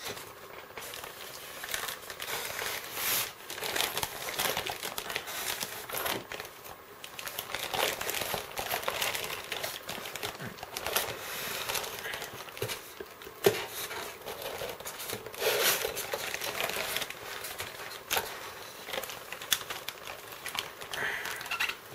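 Clear plastic wrap crinkling and crackling in irregular bursts, with sharp crackles here and there, as it is pulled off a model lying in a polystyrene foam packaging tray.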